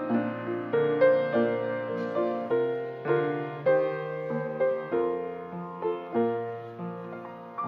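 Slow, gentle piano music: single notes and chords struck about every half second and left to ring and fade.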